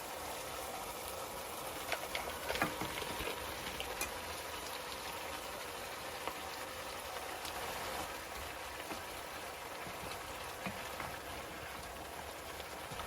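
Steady hiss of food cooking on the stove, with a few light clicks and taps about two to four seconds in.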